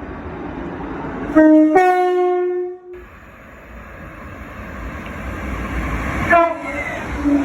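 ScotRail Class 334 electric multiple unit's two-tone horn: a short low note, then a longer higher note about a second and a half in, cut off abruptly. A train's rumble then builds, with another short horn sounding about six seconds in and a brief low note near the end.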